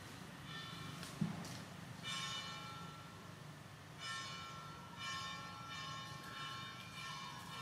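Baby macaque screaming in a string of high-pitched, drawn-out cries about a second each, with short pauses between them. A sharp tap sounds once, about a second in.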